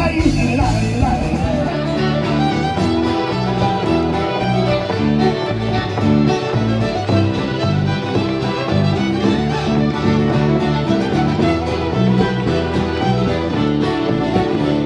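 Live folk band playing an instrumental tune led by fiddle, with guitars underneath; the recording changes abruptly about two seconds in.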